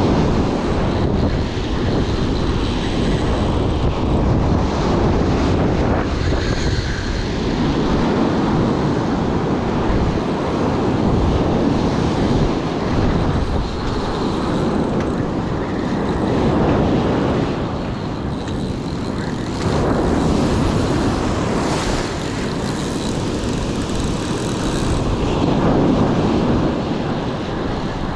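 Wind buffeting the microphone over surf on the beach, a steady low roar that swells and eases slightly every few seconds.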